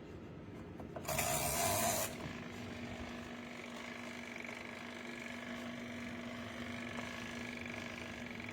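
About a second in, a loud rushing hiss lasts about a second. Then a portable twin tub washing machine runs with a steady mechanical hum, holding one low tone.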